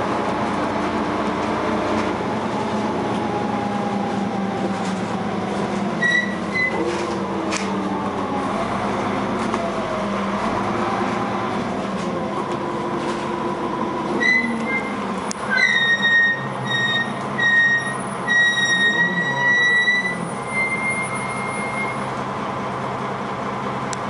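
Cabin sound of a Dennis Arrow bus with a ZF automatic gearbox, its engine and gearbox whine rising and falling in pitch as it changes speed. Over the second half a high-pitched squeal comes and goes several times while the engine drops back.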